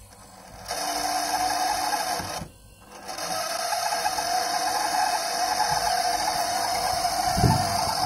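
LG GR-498JMX refrigerator's evaporator fan motor running with a steady mechanical noise that drops out for about half a second about two and a half seconds in, then carries on. The noise comes from the motor itself: its bushing is worn and the motor is faulty.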